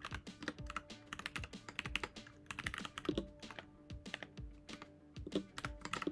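Typing on a computer keyboard: quick, irregular keystrokes in short runs with brief pauses.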